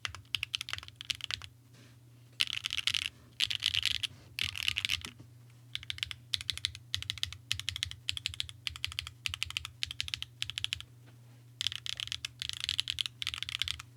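Mode Envoy mechanical keyboard being typed on: stock SWK Catmint switches on an aluminium plate with JTK keycaps and no foam. The keys clatter in quick runs broken by short pauses.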